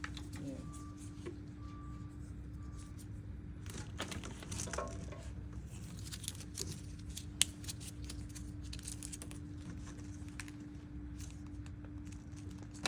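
Plastic packaging crinkling and tearing, with scattered handling clicks, as medical consumables are unwrapped, over a steady electrical hum from the equipment. Three short beeps sound in the first few seconds.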